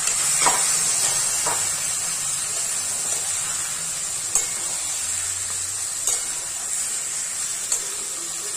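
Mutton pieces in spice masala sizzling steadily in oil in a metal kadai while being stirred with a spatula, being slow-fried (kosha) with a little water. A few short sharp knocks of the spatula against the pan are heard.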